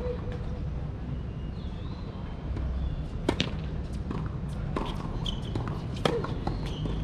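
Tennis ball being struck by rackets and bouncing on a hard court: a handful of sharp pops during a rally, the loudest about six seconds in as the near player hits a forehand.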